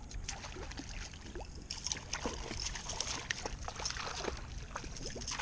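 Hooked fish thrashing and splashing at the surface beside a kayak: a run of irregular small splashes and water patters, busier from about two seconds in.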